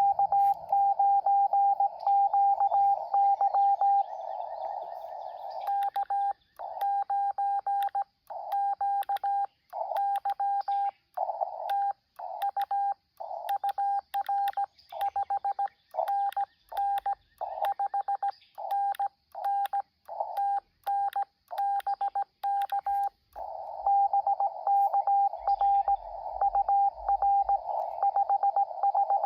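Morse code (CW) from a ham radio transceiver: a single tone keyed on and off in dots and dashes. For the first few seconds and again near the end the signal comes through band hiss. In the middle stretch the keyed tone is cleaner, with silent gaps between characters.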